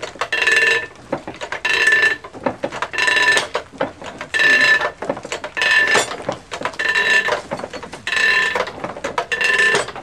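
Antique sawmill carriage's set works cranked back by hand: a metal ratchet lever worked in even strokes, about one every second and a quarter, each stroke a ratcheting clatter with a metallic ring, backing the log carriage up.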